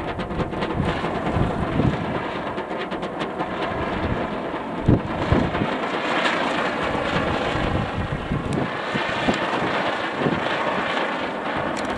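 Strong, gusty wind buffeting the microphone: a steady rush of noise with irregular low thumps as the gusts hit.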